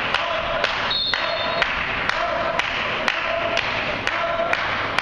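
Background music with a steady beat about twice a second, echoing in a large sports hall. A short high whistle blast about a second in, from a referee's whistle.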